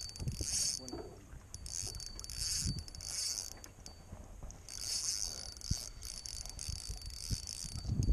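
Spinning reel cranked in spurts as a hooked fish is reeled in, its gears giving a high whir that starts and stops several times, over a low rumble.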